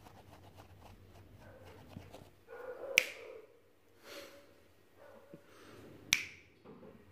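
Two sharp finger snaps about three seconds apart, among faint snuffling from a four-week-old Shiba Inu puppy sniffing at a rug.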